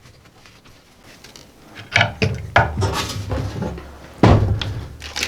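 Small parts being handled on a work table: a string of clicks and knocks starting about two seconds in, with two heavier knocks near two and four seconds.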